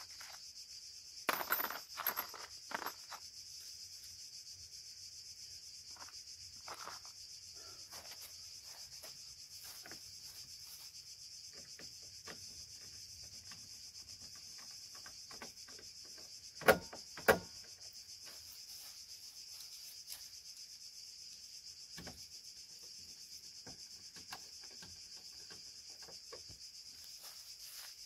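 Steady high-pitched chirring of insects, with scattered clicks and knocks from tools and parts being handled at the front of a car: a small cluster a second or two in, and two sharp knocks, the loudest sounds, about two-thirds of the way through.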